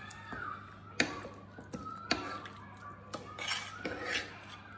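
A metal spoon clinking against a bowl as chicken pieces are turned in a thick marinade, with three sharp clinks about a second apart.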